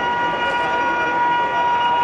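WAP-7 electric locomotive's horn held in one long steady blast over the rushing noise of an express train passing at speed.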